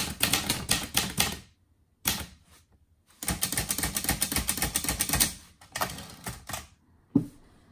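Olivetti Lettera 31 portable manual typewriter being typed on: quick runs of sharp typebar strikes in several bursts with short pauses between them, then a single low thump near the end.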